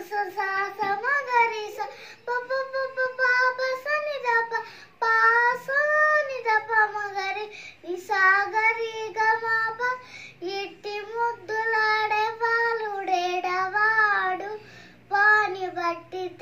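A seven-year-old girl singing a Telugu devotional song solo and unaccompanied, in short phrases with brief breaths between them.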